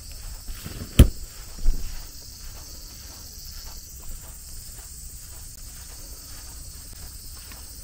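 Steady high-pitched insect chorus, with a sharp click about a second in and a dull thump just after it.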